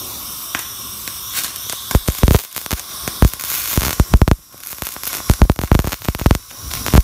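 Welding arc from a Taiwan Power (清水牌) MIG200i welder, crackling and sputtering in irregular bursts. The crackling starts about two seconds in over a steady hiss and breaks off briefly near the middle.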